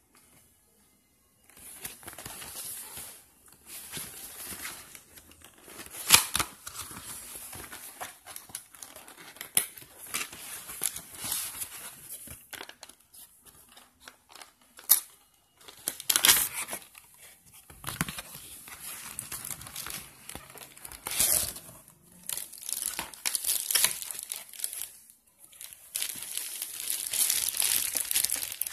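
Clear plastic packaging bag crinkling as it is handled, in irregular bursts with sharp crackles, starting about a second and a half in.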